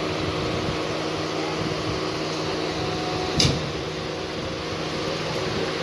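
Steady running noise inside a local train carriage under way: an even rush with a low hum, broken by one sharp clack about halfway through.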